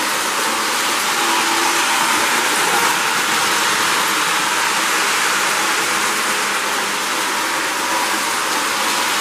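Lionel 736 O-gauge steam locomotive and its freight train running on the track: a steady whirring rush of the motor and the wheels rolling on the rails, with a faint hum underneath.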